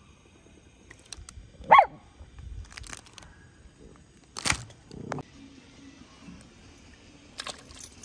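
A dog gives a short, sharp, high-pitched yip about two seconds in and a sharper bark a few seconds later, with light rustling and clicking between them.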